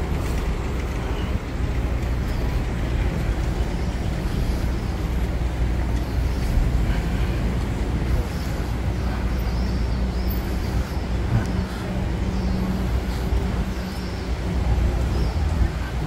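City street ambience: a steady low rumble of road traffic from cars moving and idling in the street.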